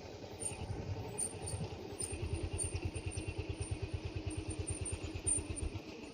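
A small engine idling with a steady low putter, about ten beats a second, which stops shortly before the end.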